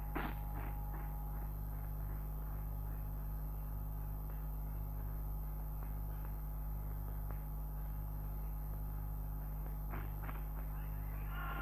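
Steady low hum and hiss of an early sound film's worn soundtrack, with no distinct event.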